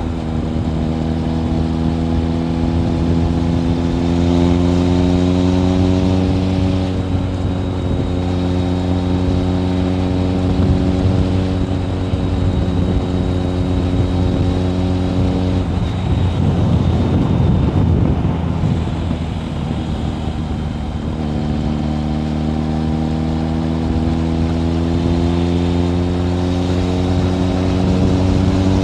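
Kawasaki ZRX1100 inline-four running through a Yoshimura aftermarket exhaust while riding, the engine note slowly climbing in pitch. A little past halfway the note breaks up into a rougher rumble for a few seconds, then the revs climb steadily again toward the end.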